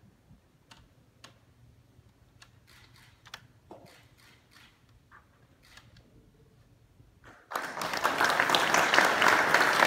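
Scattered single-lens reflex camera shutter clicks. Then, about seven and a half seconds in, an audience breaks into loud applause.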